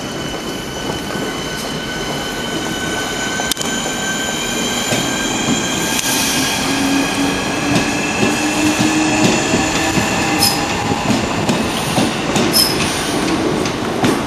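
A Southeastern Class 465 Networker electric multiple unit pulling away, its traction motors giving a whine that slowly rises in pitch as it gathers speed. From about two-thirds of the way through, its wheels click over the rail joints.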